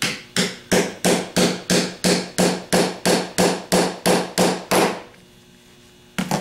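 A ball-peen hammer tapping a socket to drive the rear bearing of a Ford 6G alternator into the rear plate. About fifteen even taps come at roughly three a second, each with a short ring. After a pause, a couple of quick taps come near the end.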